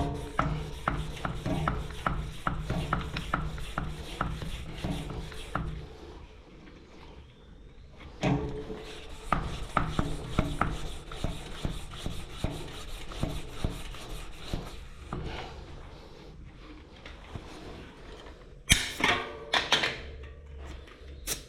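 Bicycle tyre being pumped up with a hand pump after a flat: two long bouts of quick, even pump strokes, then a few louder knocks near the end.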